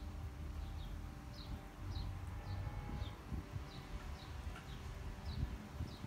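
A small bird calling with short, falling chirps, about two a second, over a low steady background rumble.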